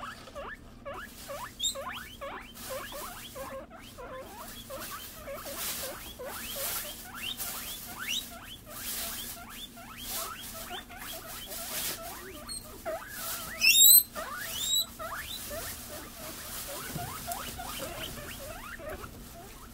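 Guinea pigs squeaking: a steady run of short, rising squeaks, several a second. About two-thirds of the way through there is a louder, higher string of rising whistles.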